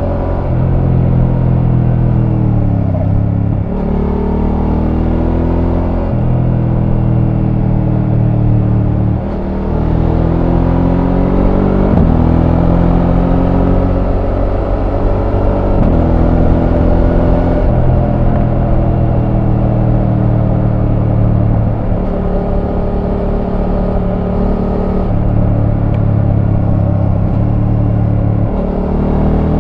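Voge 900 DSX's parallel-twin engine through its stock exhaust, running under way. The engine note rises and falls with the throttle, and its pitch steps abruptly every few seconds as the gears change.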